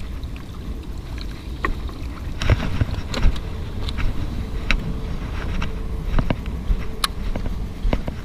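Wind buffeting an action camera's microphone, a steady low rumble, with irregular sharp clicks and knocks from handling the gear.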